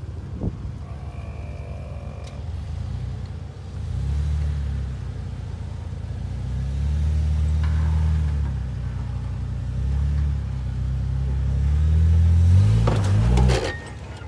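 Jeep Wrangler engine at a low crawl, swelling in short throttle pulls every few seconds as the Jeep climbs over a dirt mound, with the strongest rev near the end.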